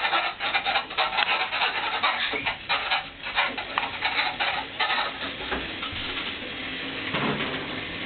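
Home elliptical trainer being worked by a small child, its handles and pedal linkage rattling and clicking in a quick, uneven run for about five seconds, then settling into a steadier scraping, rubbing noise.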